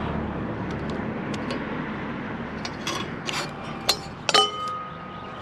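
Passing traffic fading away, then clinks and knocks of metal and glass junk being handled; one knock a little after four seconds leaves a metal piece ringing.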